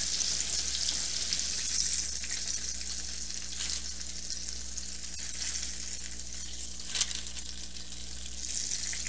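Flour-battered chicken thighs frying in avocado oil in a cast-iron skillet: a steady sizzle, with one sharp click about seven seconds in.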